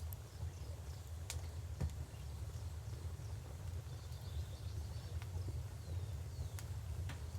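Wood fire crackling, with a handful of sharp, scattered pops, over the steady low rush of a flowing river.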